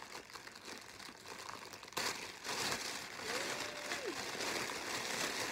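Clear plastic bag crinkling as hands pull it open to free a hat, getting louder about two seconds in.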